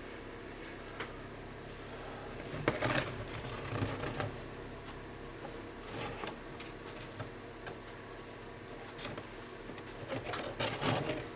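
Light clicks, taps and rustles of plastic model building parts being handled and pressed together, clustered about three seconds in and again near the end, over a faint steady hum.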